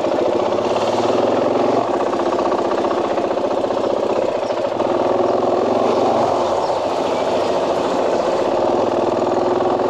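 KTM 500 dual-sport motorcycle's single-cylinder engine running steadily as the bike rides off at low speed, starting right at the beginning.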